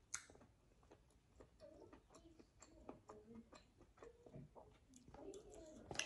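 A person chewing and smacking their lips while eating: soft, irregular wet clicks, with a sharper click about a second before the end.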